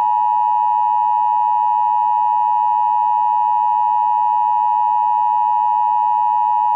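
Emergency Alert System attention tone: a loud, steady, high-pitched electronic tone held without a break, the alarm that comes before an emergency warning message is read.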